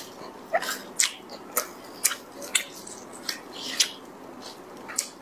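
Close-up wet eating sounds: sticky smacks and clicks as braised pork knuckle skin is pulled apart with plastic-gloved hands and chewed. There are about eight sharp wet smacks, roughly two a second.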